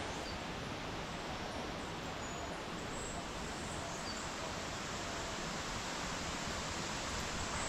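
Steady, even rushing ambience of the rainforest, with a few faint, short high chirps from birds or insects.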